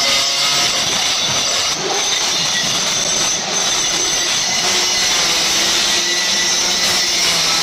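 Handheld electric marble cutter running, its blade cutting along a marble floor slab with a steady, loud grinding noise.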